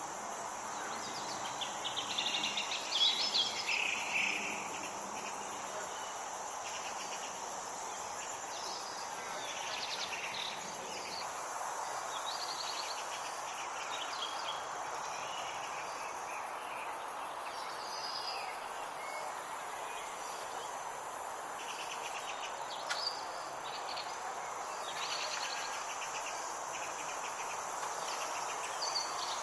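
Crickets and other insects chirping in a dense, continuous chorus, with a constant high-pitched buzz over rapid pulsing chirps. The level drops suddenly twice, about halfway in and again a little later.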